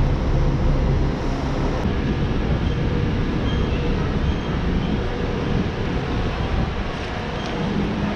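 Steady low rumble of idling diesel coach engines, with a hum that fades about a second in and leaves a duller rumble.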